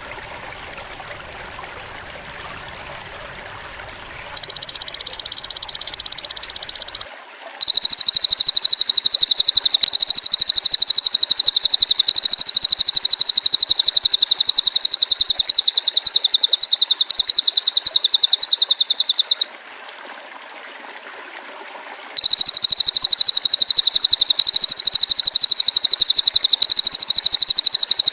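Bird-training (masteran) recording of a shrill, very fast high-pitched trill, played in long unbroken runs: a short run about four seconds in, a long run of about twelve seconds, then another from about 22 seconds on, with only faint sound in the gaps.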